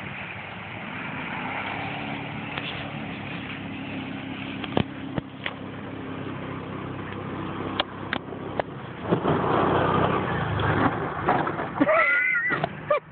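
Kawasaki Mule 3000 utility vehicle's engine running as it drives across the field, getting louder around nine seconds in as it speeds up toward the jump. A few short clicks in the middle, and a brief high call near the end.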